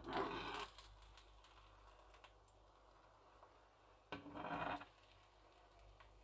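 A slotted metal spatula scraping across a non-stick frying pan twice, in two short strokes, one at the start and one about four seconds in, as it is pushed under a folded omelette.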